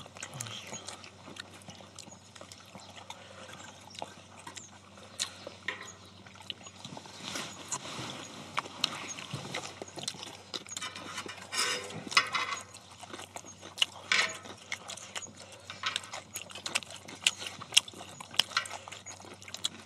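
Eating sounds picked up close by clip-on mics: people chewing stir-fried pork, with chopsticks and metal bowls making scattered sharp clicks against each other and the cast-iron cauldron lid.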